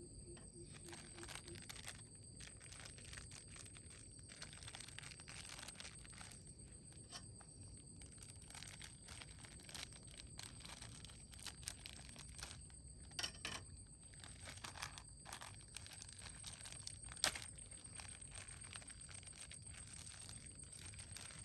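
Crickets trilling steadily and high-pitched, with small clicks and rustles of handling scattered throughout and one sharp click about seventeen seconds in.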